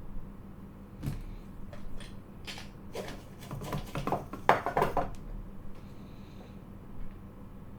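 Small tools and parts handled on a workbench: a run of light clicks and clatter that gets busier and louder about four to five seconds in, over a low steady hum.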